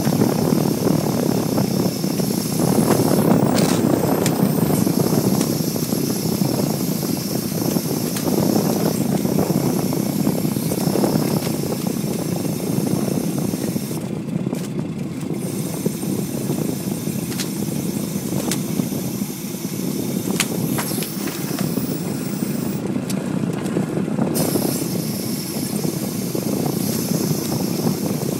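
Fishing boat's engine running steadily while the gillnet is hauled aboard, with a few light knocks and clicks.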